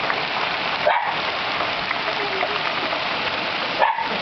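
Heavy hail falling steadily, a dense even hiss of countless small impacts. Two short dog barks break through, about a second in and again near the end.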